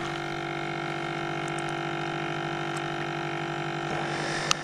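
Small electric motor humming steadily, with a single sharp click near the end.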